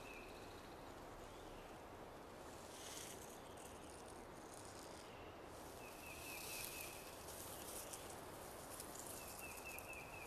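Faint natural outdoor ambience: a steady low hiss with three short, high chirping trills, near the start, about six seconds in and near the end, and a few soft bursts of higher hiss.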